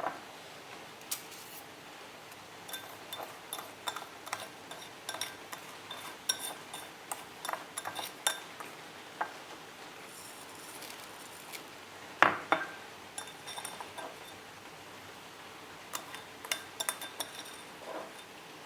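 Kitchen utensils and dishes clinking: short, ringing clinks at irregular intervals, with the loudest knock about twelve seconds in.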